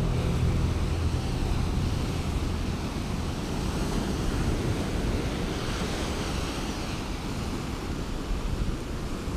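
Ocean surf breaking and washing over lava rocks onto a sandy beach, a steady wash of noise, with wind buffeting the microphone.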